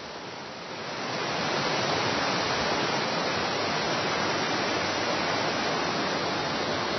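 Rushing water of a tall waterfall: a steady, even noise that swells up about a second in and then holds.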